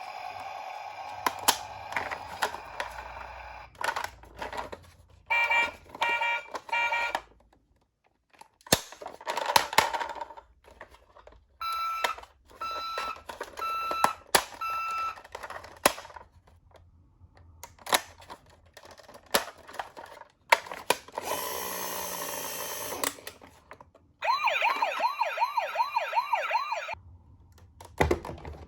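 Electronic toy sounds mixed with sharp plastic clicks: short repeated beep patterns twice, a hiss of about two seconds, then near the end a fast-warbling electronic ambulance siren that runs for about three seconds.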